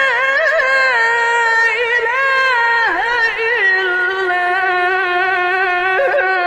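A male reciter's voice chanting the Quran in the melodic mujawwad style, drawing out long held notes with wavering ornaments. There is a brief pause for breath near the end.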